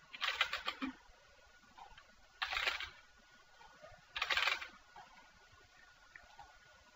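Computer keyboard typing in three short, quick bursts of a few keystrokes each, about two seconds apart.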